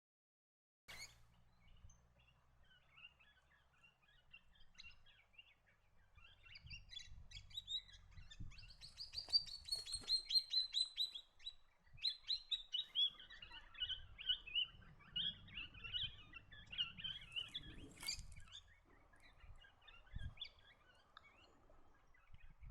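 Swift parrots calling: scattered high chirps, then a rapid run of high, closely spaced notes in the middle that is the loudest part, followed by more chirping. The calls start about a second in, after silence.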